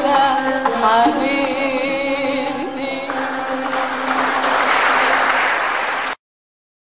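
The close of an Arabic song: held, wavering notes over the accompaniment, then about three seconds in a noisy wash of applause joins the last sustained notes. The audio cuts off suddenly about six seconds in.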